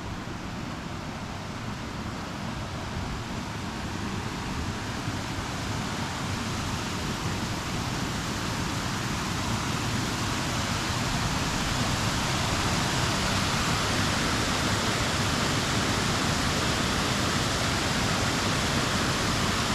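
Rushing water of Haw Creek Falls, a steady hiss that grows louder over the first dozen seconds or so, then holds steady.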